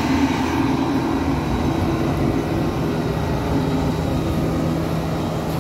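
Tracked corn combine harvester's engine running steadily as the machine turns and reverses on its crawler tracks.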